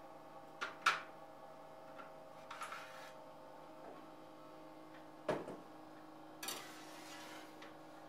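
Clicks, knocks and a short scrape of a metal baking tray and a countertop toaster oven being handled as bread slices are set out and slid in to toast, over a steady faint hum. The sharpest click comes about a second in, a knock a little after five seconds, then a longer scrape.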